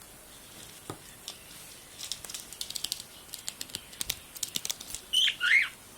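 Pet budgerigar making a run of quick small clicks and taps, then a short burst of chirping chatter near the end.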